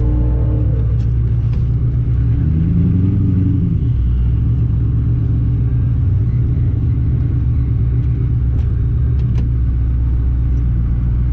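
Supercharged Ford Mustang V8 idling, a steady low rumble heard from inside the cabin, with the engine pitch rising briefly about three seconds in.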